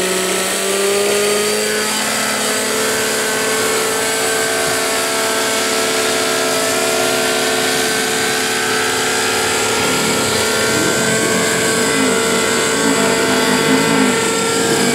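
JR Airskipper 90 radio-controlled helicopter's glow engine and rotor running at high revs. The engine note rises over the first two seconds as it lifts off, then holds steady, wavering over the last few seconds while the helicopter flies aerobatics.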